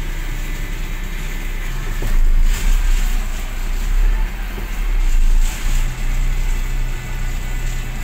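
UD Croner garbage truck's diesel engine running with a deep, steady rumble. Two louder surges of hiss come about two and a half and five and a half seconds in, and a steady low hum sets in near six seconds.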